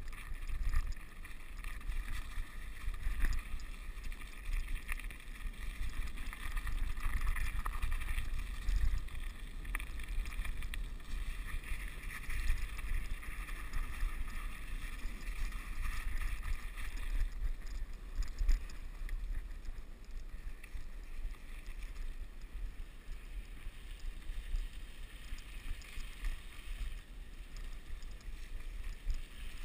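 Mountain bike riding over snow and slush, the tyres hissing on the track with occasional knocks and rattles over bumps. Wind noise on the camera's microphone runs underneath throughout.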